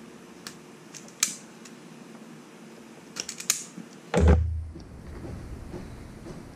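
Wire stripper clicking as its jaws close on insulated wire and spring open: single sharp clicks about half a second and a little over a second in, then a quick cluster of clicks about three seconds in. A heavier thump follows about four seconds in, then faint rustling of handling.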